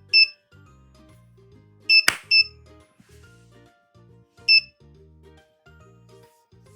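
Short, high electronic beeps from the dice kit's buzzer, four in all, with a single hand clap about two seconds in that sets the dice rolling. Faint background music runs underneath.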